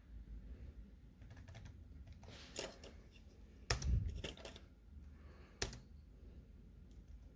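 Laptop keyboard being typed on: short clicks of keys in irregular clusters, a few sharper presses among them.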